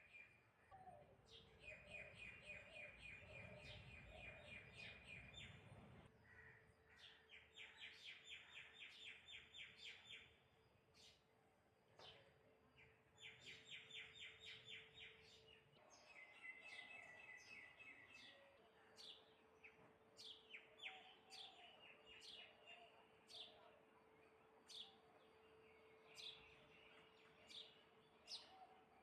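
Faint birds chirping: several rapid trills of quick repeated notes, each lasting a few seconds, then many short, separate chirps through the second half. A faint steady hum sits underneath.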